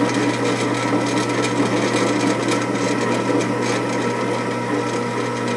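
Drill press motor running steadily with its bit feeding into a metal engine head, drilling a pilot hole: a constant hum and whine with a fine scraping of the cut.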